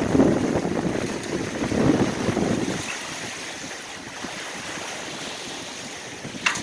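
Strong wind buffeting the microphone in heavy gusts for the first couple of seconds, then easing to a steadier rush. One short sharp click comes near the end.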